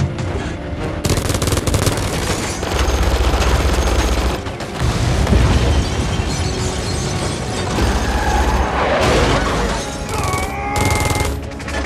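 Sustained rapid automatic gunfire and explosions, mixed with an action-film music score.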